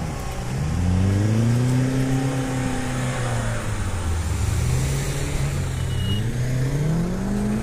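Older Mahindra Thar's diesel engine revving as it spins donuts on dry sand: the engine note climbs, drops back about halfway through, then climbs again near the end.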